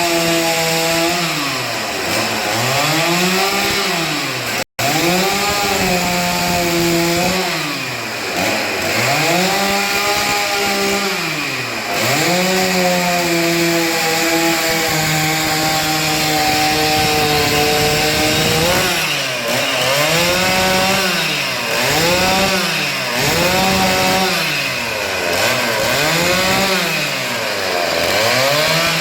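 Two-stroke chainsaw cutting wood, its engine pitch rising and falling again and again as the throttle is worked, held high for several seconds in the middle and dipping every second or so near the end. The sound drops out for an instant about five seconds in.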